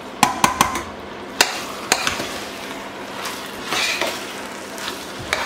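A spoon stirring a thick rice and tomato mixture in a stainless steel pot, with several sharp knocks of the spoon against the pot, a quick cluster in the first second and two more a little later.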